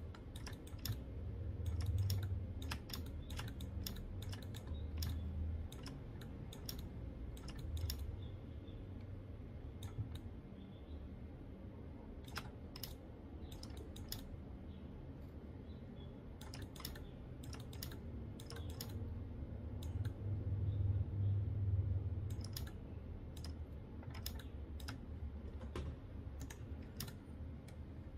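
Computer keyboard and mouse clicking in irregular runs of sharp taps, over a low rumble that swells twice, about two seconds in and again near the two-thirds mark.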